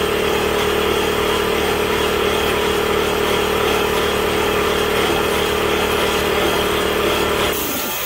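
Valve seat machine's spindle driving a counterbore cutter into a cast-iron cylinder head, cutting the pocket for a valve seat insert: a steady machining noise with a constant tone. It drops away about seven and a half seconds in as the cutter lifts out.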